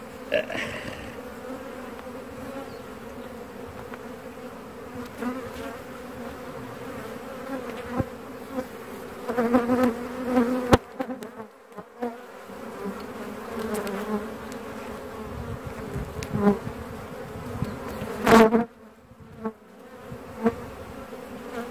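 Honeybee colony buzzing steadily in an opened hive, with the frames exposed. The buzz swells louder now and then, most of all about eighteen seconds in, and there is one sharp click near the middle.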